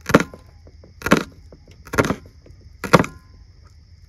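Knife cutting through an onion, four slow cuts about a second apart.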